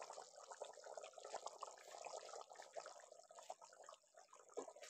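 A pot of meat curry broth (shorba) simmering uncovered, giving faint, irregular bubbling and popping.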